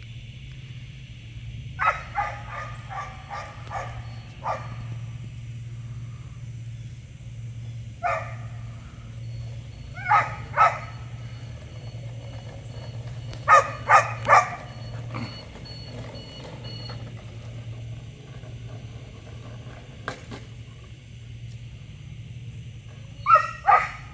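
Giant Schnauzer puppy barking in scattered groups: a quick run of barks about two seconds in, then single, paired and triple barks with long pauses between. A steady low hum runs underneath.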